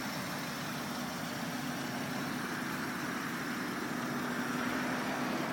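A vehicle engine idling: a steady hum with one constant low tone and no change in speed.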